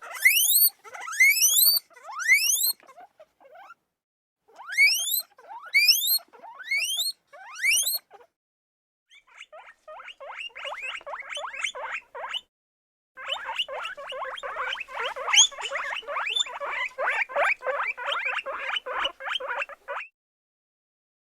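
A small animal squealing: a series of high, sharply rising squeals, several a second in short runs. After a brief pause comes a long run of rapid chattering chirps, faint at first and then louder.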